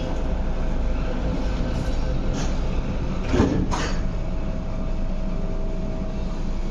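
Inside a Metro-Cammell MLR electric train carriage: the sliding passenger doors shut with a short, loud thud about three and a half seconds in, over the carriage's steady hum, and the train then starts to pull away.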